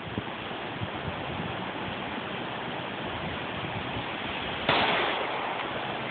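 A single semi-automatic pistol shot near the end, sudden and loud, dying away over about a second, over a steady rushing background noise.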